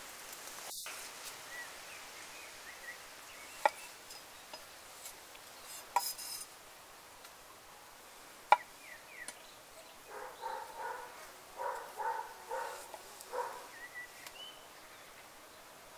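Knife cutting tomatoes on a wooden cutting board: three sharp knocks of the blade on the board a couple of seconds apart, then a quicker run of slicing cuts near the end.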